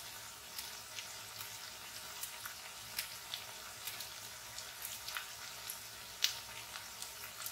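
Potatoes and onions frying in oil in a karahi: a faint steady sizzle with scattered sharp crackles and pops, the loudest near the end.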